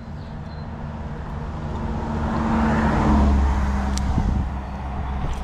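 A motor vehicle passing by: engine and tyre noise swell to a peak about three seconds in and then fade, with one sharp click about a second after the peak.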